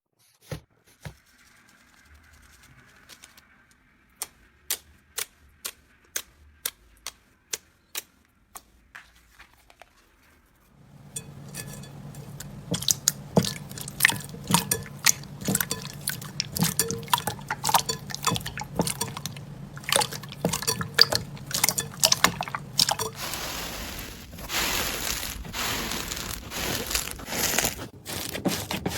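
Slime being squished and poked: wet clicks and pops. They are sparse at first, then dense and crackling from about eleven seconds in, with a hiss joining near the end.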